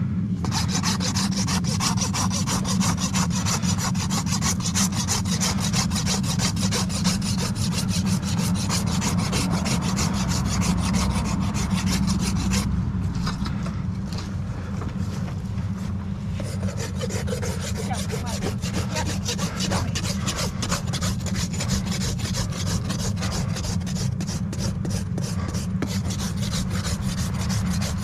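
Farrier's rasp scraping across a horse's hoof in rapid, continuous strokes, over a steady low rumble.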